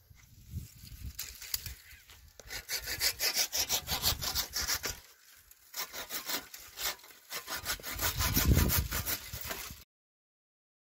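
Hand saw cutting through wood in quick back-and-forth strokes, in two runs with a short pause in the middle; the sound cuts off suddenly near the end.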